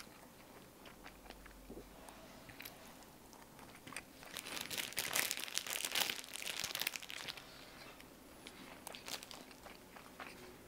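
Plastic film wrapper of a spam musubi rice ball crinkling and being crumpled in the hands, a dense crackle lasting about three seconds starting about four seconds in.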